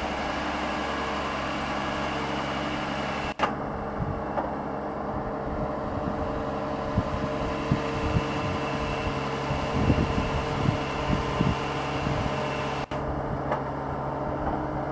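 Track-laying machine's engine running with a steady hum, with scattered low knocks and clunks through the middle of the clip.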